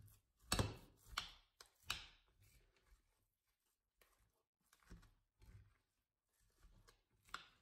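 A spoon mixing a wet filling of minced meat, glass noodles and diced vegetables in a glass bowl: a few short scrapes and knocks against the bowl. The strongest three come in the first two seconds, then fainter ones follow.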